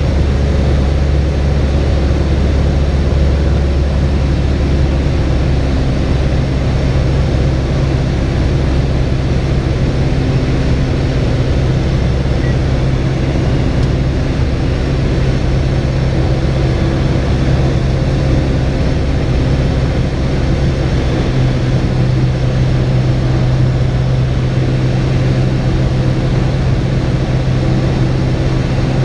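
Cessna 172's piston engine and propeller droning steadily, heard inside the cockpit. The deep hum shifts slightly about twenty seconds in.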